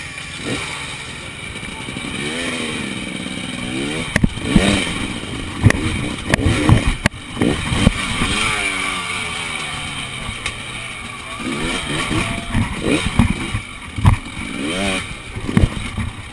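Enduro motorcycle engine revved in repeated short blips, its pitch rising and falling, as the bike is forced over tyres and logs, with sharp knocks and clatter from the bike striking the obstacles.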